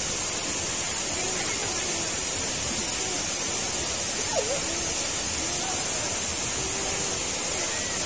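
Mantayupan Falls, a tall waterfall, rushing with a steady hiss. Faint distant voices come and go underneath.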